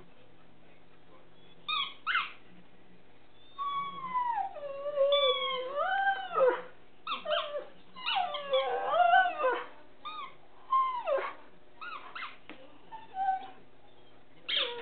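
A husky-type dog howling and whining in a run of calls that slide up and down in pitch, with short pauses between them. One longer, wavering call comes a few seconds in, followed by quicker, choppier calls.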